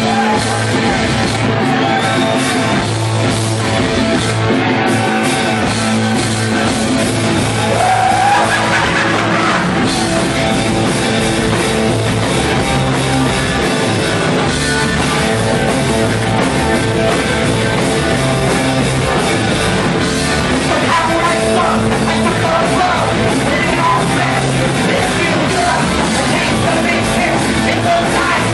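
Punk rock band playing live, loud and dense without a break, with shouted singing over the band.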